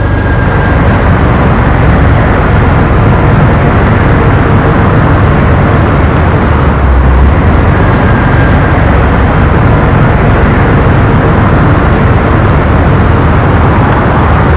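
A loud, steady rumbling noise, heavy in the low end, that starts abruptly, with faint thin tones showing now and then above it.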